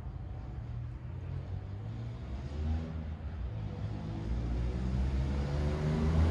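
Suzuki Swift's engine approaching out of sight, growing steadily louder, its pitch climbing in the second half as the car accelerates toward the camera.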